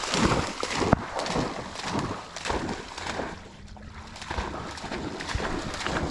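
Shallow marsh water splashing and sloshing in uneven surges as a retriever wades back through it with a downed teal, with some wind on the microphone.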